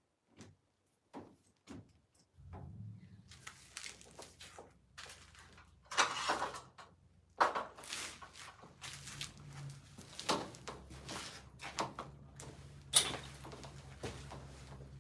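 Irregular knocks and clatters, several of them sharp, over a steady low hum that comes in about two seconds in.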